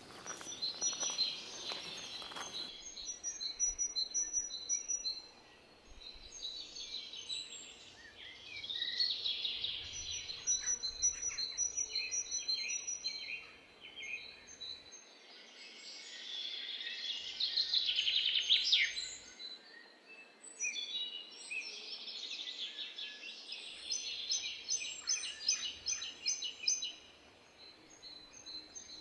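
Songbirds singing: overlapping phrases of high chirps and trills that come and go every few seconds, with a quick run of repeated notes near the end.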